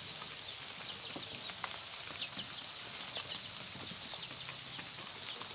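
A dense mass of farmed crickets chirping in a crowded rearing pen: one steady, continuous high-pitched trill, with faint scattered ticks over it.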